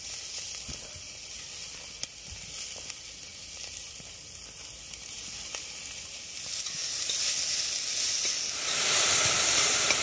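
Chopped tomatoes and chillies sizzling in a pan, cooking down to release their juice, with a few light clicks. The sizzle grows louder in the last few seconds.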